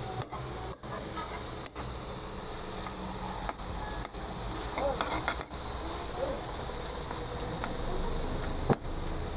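Diced ham and bacon frying in oil in a wok: a steady, high sizzling hiss, broken by a few very brief gaps.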